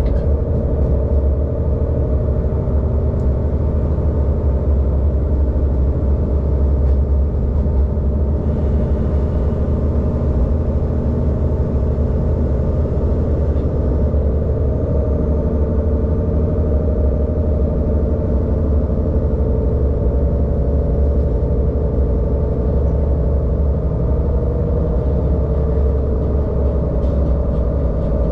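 ÖBB diesel railcar's engine and running gear heard from inside the driver's cab: a steady, deep rumble with an even engine drone while the train runs along the line.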